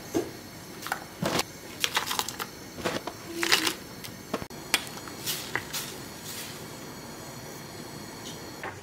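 Crisp nurungji (scorched rice crust) being broken by hand and dropped into a pot of water: a quick run of sharp crunches and cracks that dies away about two-thirds of the way through.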